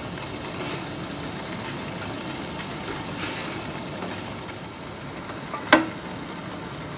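Steady hiss of a steamer pot of boiling water, with a single sharp clink near the end as the steel plate knocks against the steamer.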